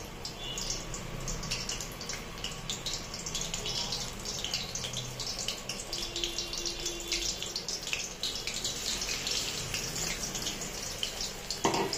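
Cornflour-battered prawns deep-frying in hot oil in an iron kadai: a steady, dense crackling sizzle, with another prawn added near the end. A brief louder clatter comes just before the end.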